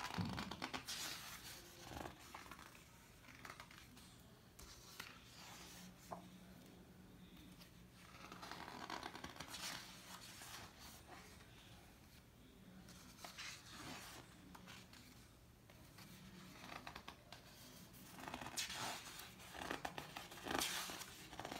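Pages of a large book being turned by hand, one after another: paper rustling and sliding in short bursts every few seconds, busiest near the start and toward the end.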